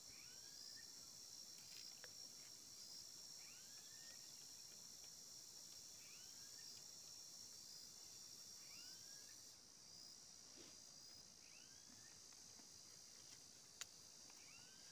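Faint outdoor ambience: insects buzzing steadily at a high pitch while a bird repeats a short two-note call, a higher curved note then a lower one, about every second and a half. A single sharp click near the end.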